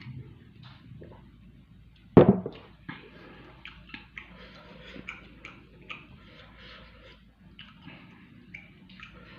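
Close-miked eating: a string of small irregular clicks and smacks from chewing and handling food, with one loud knock about two seconds in.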